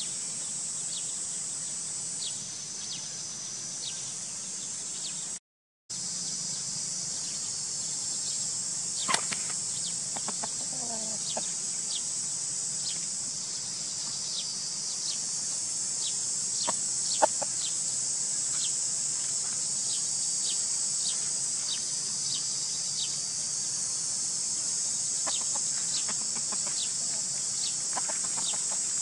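A steady high-pitched insect drone with many short chirps, and a rooster clucking briefly about ten seconds in.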